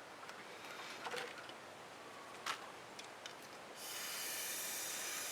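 A few light taps and scrapes, then a steady high hiss that starts about four seconds in and holds even.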